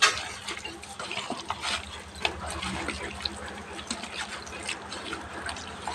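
Hands squishing raw chicken pieces in a wet yogurt-and-spice marinade: irregular wet squelches and small clicks.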